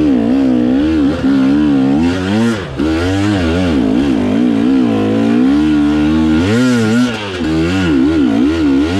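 KTM 300 XC-W two-stroke dirt bike engine revving up and down in quick, repeated throttle blips, with a few steadier stretches in between.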